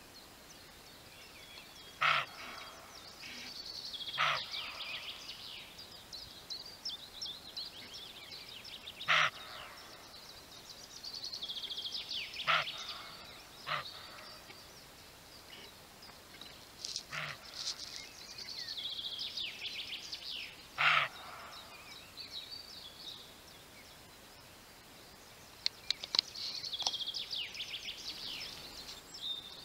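A roe deer buck barking: about seven short, hoarse single barks at irregular intervals of one to four seconds, the last one about three-quarters of the way through. Songbirds sing in the background between the barks.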